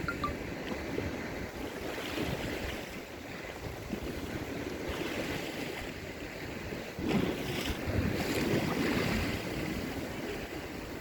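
Sea waves washing ashore with wind buffeting the microphone, an even rushing noise that swells a little about seven seconds in.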